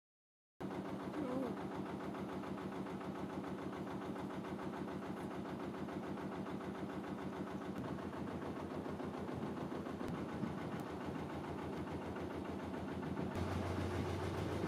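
Narrowboat's diesel engine running steadily at cruising pace with an even, rapid beat, after a brief moment of silence at the start. Near the end the sound turns deeper and a little louder as the boat passes under a bridge.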